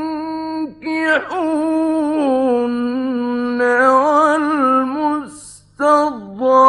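Mujawwad Quran recitation: a man's voice chanting long, ornamented melismatic lines with wavering pitch, breaking briefly about five seconds in before starting a new phrase. A low steady hum runs underneath.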